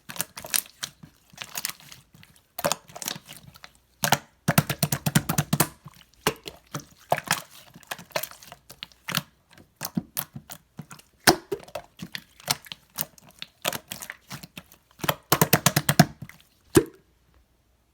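Slime being squished and pulled by hand, making sticky clicking and popping sounds, with two runs of rapid pops, one about four seconds in and one near the end.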